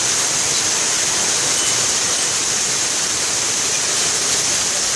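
Heavy hailstorm: a dense, steady hiss of hailstones and rain pelting down, with no let-up.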